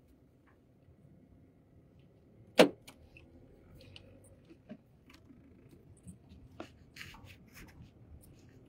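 Handling noise inside a car cabin: a phone being moved and settled, with scattered small clicks and knocks and one sharp knock about two and a half seconds in.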